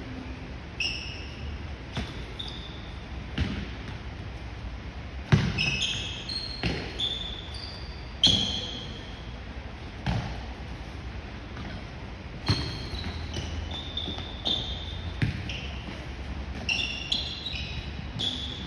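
Indoor soccer ball being kicked and bouncing on a hard court floor, with irregular sharp thuds. Short high squeaks of shoes on the court come between the thuds.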